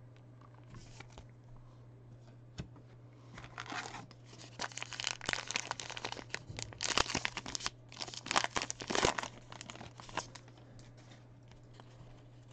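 A trading card pack's wrapper being torn open and crinkled in the hands: a run of crackling rustles that starts a few seconds in and is loudest just past the middle.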